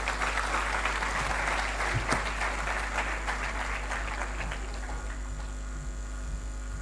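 Audience applauding, the clapping dying away about five seconds in and leaving a steady electrical hum.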